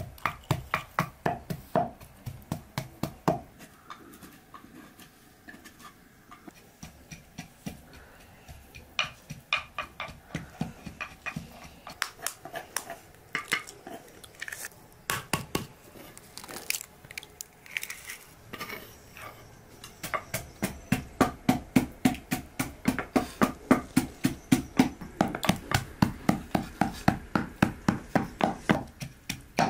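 Wooden pestle pounding in a wooden mortar, about three to four even knocks a second, in the first few seconds and again through the last ten or so. In between come scattered light taps and clicks of spoons and bowls.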